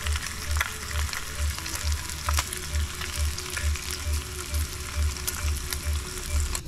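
Bacon rashers frying in a frying pan: a steady sizzle with sharp spitting pops. A soft low beat runs underneath at about two pulses a second.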